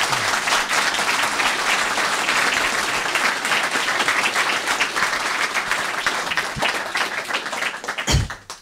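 Audience applauding: many hands clapping in a dense, steady patter that dies away near the end, where there is a short thump.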